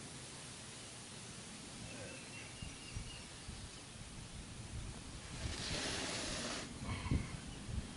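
Low background noise with a brief burst of rustling noise about six seconds in and a few light knocks.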